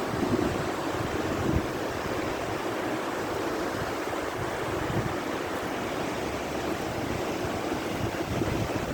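Steady rush of falling water from the Bigar waterfall, with uneven low rumbles of wind on the microphone.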